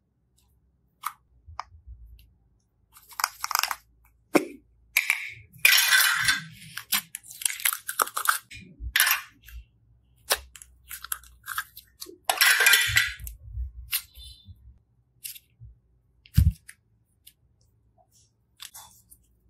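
Slime being squeezed, stretched and pressed by hand into a clear plastic cube cup: irregular squishing bursts, several of them long, with many short sharp clicks between.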